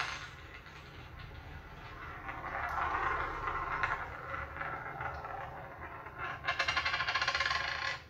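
Phone recording of a room with a film's soundtrack playing: a steady low hum under hiss that swells about halfway, with a rougher, grainier noise near the end.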